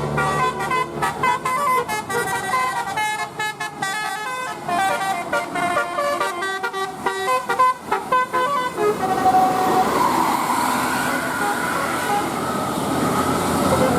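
Bus telolet horn, a multi-tone air horn, playing a fast melody of short notes that jump up and down in pitch for about nine seconds. After that the tune stops and a noisier mix of street and vehicle sound follows.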